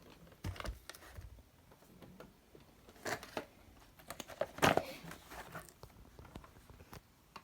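Packaged fireworks being handled: scattered light knocks, clicks and crinkles of boxes and wrapping, with the loudest rustles about three and four and a half seconds in.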